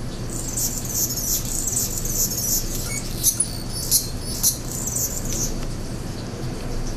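Anna's hummingbirds giving high, scratchy chattering squeaks, aggression calls in a fight over a perch, with a few sharper chips about three to four and a half seconds in.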